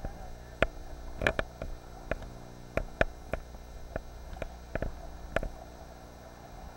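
About a dozen sharp, irregular clicks and knocks over roughly five seconds, then stopping, over a steady low hum.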